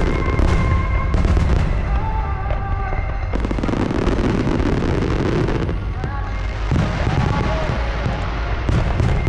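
Aerial fireworks bursting in quick, dense succession, with deep booms and crackle, over music with a sung melody.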